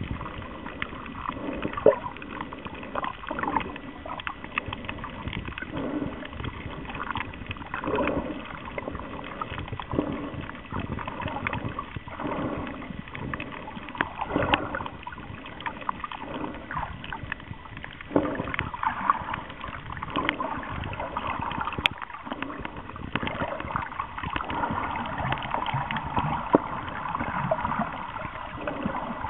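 Water noise recorded by a camera held underwater: irregular sloshing and gurgling, dotted with many short clicks.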